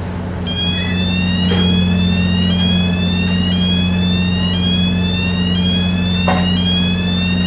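Docked GVB ferry's engine running with a steady low hum, and from about half a second in, a repeating electronic warning tone that rises in pitch about twice a second. A couple of brief knocks are heard among it.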